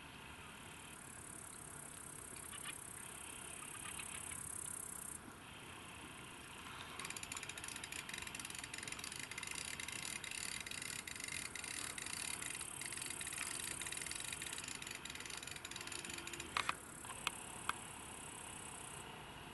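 Faint, high-pitched chirring of insects in the waterside grass, with a stretch of dense rapid clicking in the middle and a few sharp clicks near the end.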